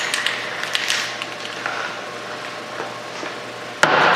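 Spray-paint aerosol can being handled with a few light clicks and knocks, then a short burst of spray hiss near the end.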